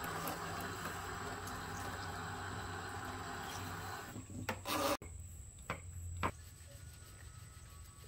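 Water spraying from a handheld shower sprayer through a child's hair and splashing into a washing sink, a steady hiss for about four and a half seconds. It ends with a couple of short louder bursts and cuts off suddenly, leaving a quieter background with a few faint clicks.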